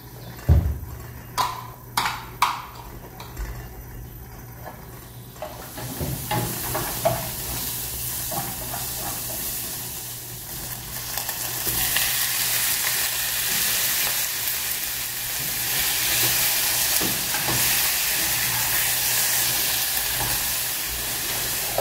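A few light knocks near the start, then frying in oil in a nonstick pan, stirred with a wooden spoon. The sizzle grows much louder and steadier about twelve seconds in, as raw beef chunks go into the hot oil.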